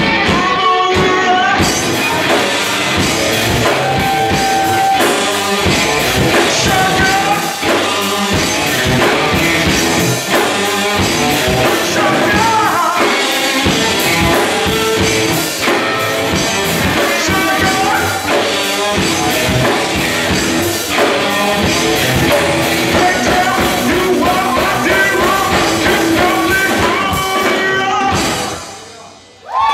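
Live rock band playing a loud amplified song: electric guitars, drum kit and a singer. The sound falls away steeply near the end.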